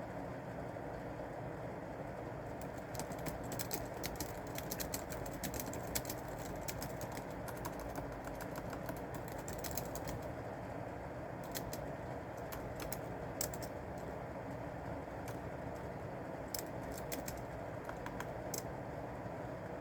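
Typing on a keyboard in several bursts of rapid key clicks with short pauses between them, over a steady low background rumble.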